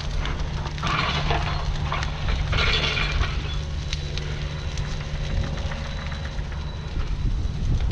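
Mini excavator engine running steadily under a burn pile's crackle, with two louder spells of wood cracking and breaking, about a second in and again between two and a half and three seconds in.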